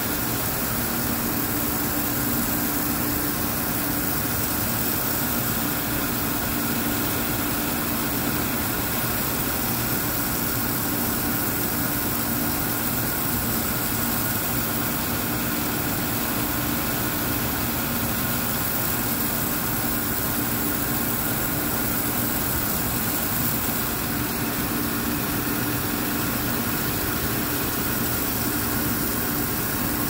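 Grinding machine grinding a metal die, running steadily: an even noise with a low steady hum and fainter higher steady tones.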